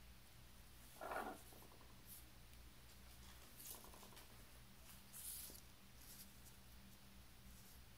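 A few faint, brief rustles and scrapes of folded paper being handled and slid across a wooden tabletop, the clearest about a second in, over a faint steady low hum.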